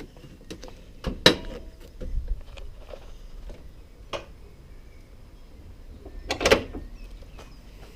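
A few sharp knocks and clunks: the loudest about a second in, a smaller one near the middle and a cluster of them near the end, over a faint low rumble.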